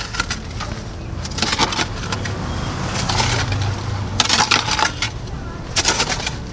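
Short-handled hoe scraping and dragging loose soil, four scraping strokes about every second and a half, heaping earth around the base of a newly planted banana plant.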